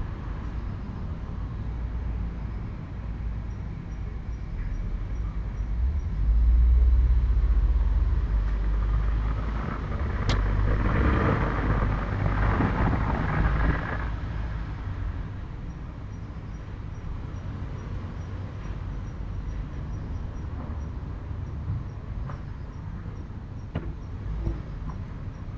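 A steady low rumble that swells for a few seconds about six seconds in. A single sharp click comes about ten seconds in, followed by some four seconds of louder rushing noise, and faint evenly spaced high ticks run in the background.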